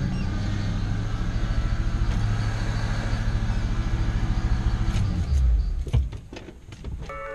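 An engine running steadily with a low, rough hum, which changes and winds down about five seconds in, followed by a single sharp knock about a second later.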